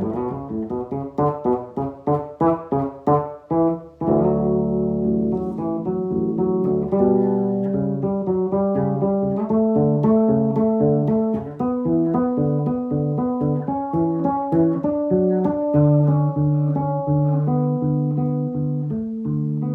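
Bass guitar playing a jazz arrangement: a quick run of short plucked notes, then from about four seconds in slower held notes and chords over repeated low notes.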